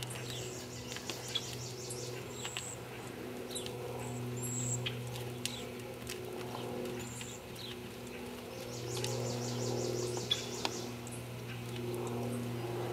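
Small birds calling: short falling whistles and two rapid high trills, one near the start and one about two-thirds of the way through, over a steady low hum.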